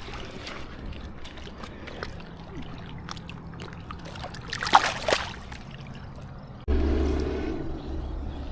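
River water trickling along the bank, with scattered small clicks and one short splash about five seconds in. Near the end the sound changes abruptly to a louder low rumble.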